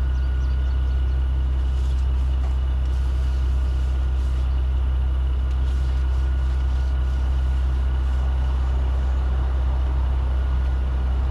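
Steady low engine drone, like a diesel truck idling, with faint light clicks and rustles of hand work on top.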